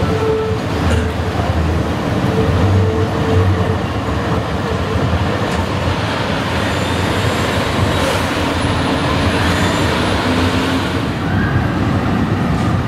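Articulated tram rolling past along street track: a steady rumble of wheels on the rails with a low hum.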